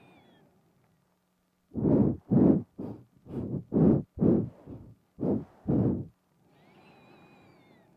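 Close-miked nasal breathing into a binaural microphone: a run of about ten quick, puffing sniffs, roughly two a second, between about two and six seconds in.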